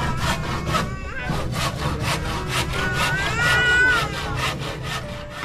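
Hand saw cutting through timber in quick, even strokes.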